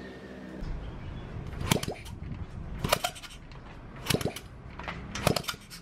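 Sharp metallic clicks, five in all and about a second apart, from hands working at the cylinder head of a Honda C50 engine on its stand, over a low steady background.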